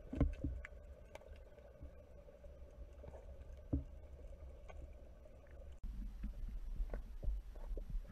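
Muffled underwater ambience picked up by a camera submerged in a swimming pool: a steady low rumble with a faint hum, broken by a few dull knocks, two right at the start and one about four seconds in. The rumble changes abruptly about six seconds in.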